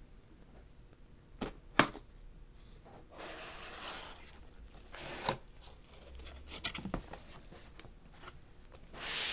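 A knife slitting the seal stickers on a cardboard gadget box with two sharp snaps. Then the cardboard lid slides off with a scraping rustle and a few taps, and a paper flap slides open with a louder rustle near the end.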